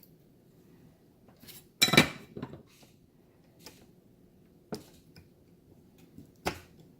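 Small metal parts and tools clinking and knocking on a hard work surface: a short cluster of sharp clinks about two seconds in, then single knocks near the middle and near the end.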